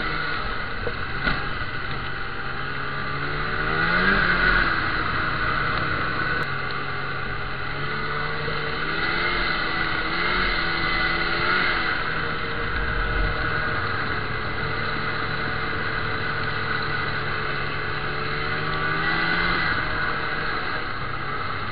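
Snowmobile engine running under throttle through deep snow, revving up sharply about four seconds in and rising and falling several times after, over a steady rushing hiss.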